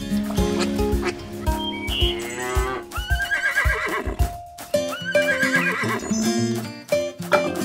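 Background music with a farm-animal call sound effect twice, about two seconds apart; each call rises and then wavers.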